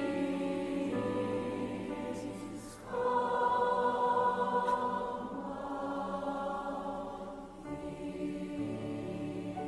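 Slow choral music: held chords that move to a new chord every two or three seconds.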